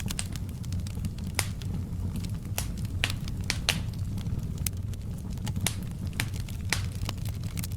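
Wood fire crackling steadily: a low, even rumble of flames with sharp, irregular pops and snaps, one or two a second.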